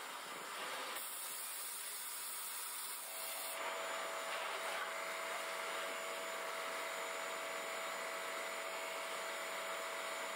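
Abrasive blast cabinet blasting small brass gas fittings: a steady hiss of compressed air and grit that shifts in tone about a second in and again about three seconds in.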